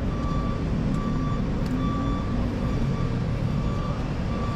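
Engine idling with a steady low rumble, while a short electronic beep repeats about once a second over it.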